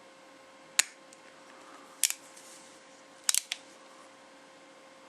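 Colt Frontier Scout .22 single-action revolver being worked by hand: sharp metallic clicks of the hammer being cocked and dropped on a trigger pull. There are a handful of clicks: one about a second in, a pair near two seconds, and a quick cluster of three a little past three seconds.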